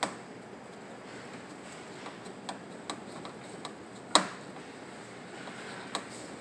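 Hand screwdriver clicking on screws and the machine's metal case as the UV lamp cover's screws are driven in: a handful of irregular sharp clicks, the loudest about four seconds in, over a steady faint hiss.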